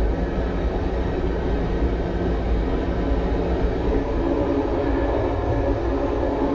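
Steady rumble of an old MÁV passenger carriage running along the rails at speed, heard inside its toilet compartment.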